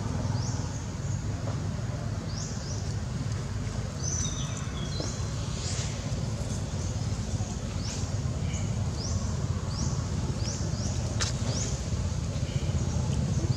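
Steady low rumble, with short high chirps about once a second from birds in the forest and a brief held whistle about four seconds in.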